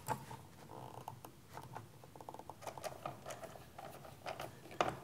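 Scattered small clicks and light scrapes of a nut driver turning an 8 mm nut onto a ring terminal inside a plasma cutter's case, with wires being handled; the sharpest click comes near the end.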